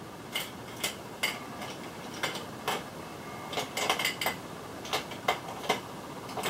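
Small hard makeup items (brushes, jars and compacts) clicking and clattering against each other and the tabletop as they are rummaged through in search of a makeup brush. The clicks come irregularly, several a second, and bunch together about halfway through.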